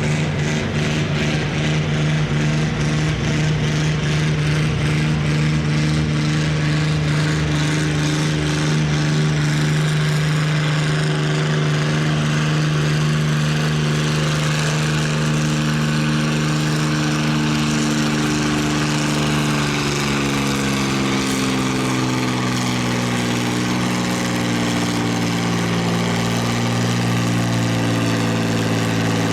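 Farm stock pulling tractor's engine running hard under load while pulling the sled, a loud steady drone whose pitch shifts slightly past the middle of the run.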